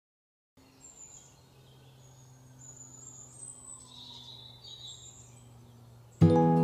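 Faint background ambience of small birds chirping over a low steady hum, after a brief silence. Acoustic guitar music comes in loudly near the end.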